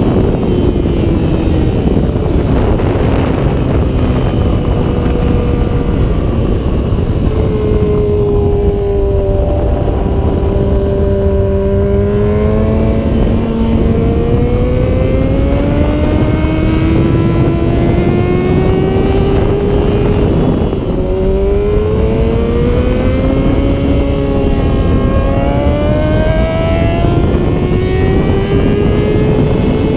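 2005 Yamaha R6's 600 cc inline-four engine under hard acceleration. Its pitch climbs steadily, then drops sharply a few times as gears are shifted. A heavy rush of wind noise runs underneath.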